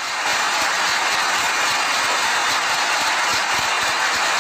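Large multi-cylinder marine diesel engine of a ferry running, heard up close in the engine room as a loud, steady wash of mechanical noise.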